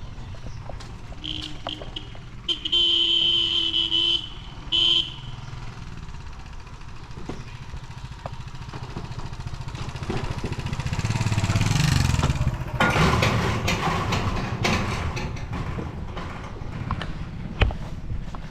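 A horn sounds twice, a long blast of about three seconds and then a short one. Then a fast passenger train's rumble builds, loudest about twelve seconds in, and the train runs past with its wheels clattering over the rails.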